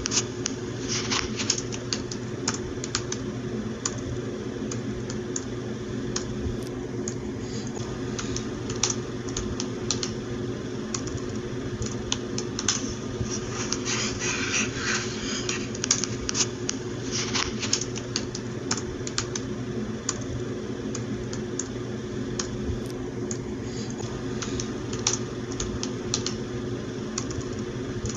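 Typing on a computer keyboard: a continuous run of irregular key clicks, in quick flurries with short pauses, over a steady low hum.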